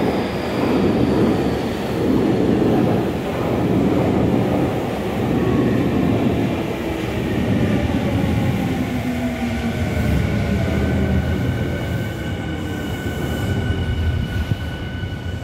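Electric commuter train running through the station, wheels rumbling over the rails with regular swells at first, then its motor whine slowly falling in pitch as it slows, the overall sound easing off toward the end.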